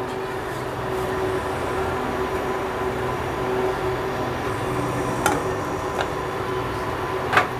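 A steady machine hum with a faint constant tone, like a running fan, and a few light clicks about five and six seconds in, then a sharper click near the end.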